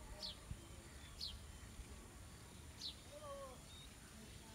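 A bird calling faintly: three short, sharp high notes, about one to one and a half seconds apart, over a low background rumble.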